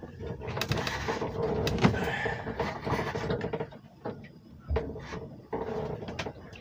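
Knocks, clatters and creaks in a small sailing-boat cabin rolling in a storm, as a cooking pot on a portable camping stove is held and shifted. There are several sharp knocks, the loudest about two seconds in and near the end.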